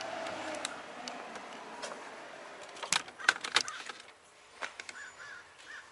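A quick run of sharp metallic clicks and clinks about three seconds in, from hand tools such as a wrench being handled, over faint background hiss.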